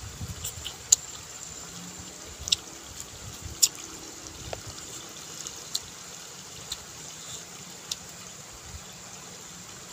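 Wet mouth sounds of a person eating food by hand: chewing and lip smacks, with sharp short clicks about once a second. A steady high hiss runs behind.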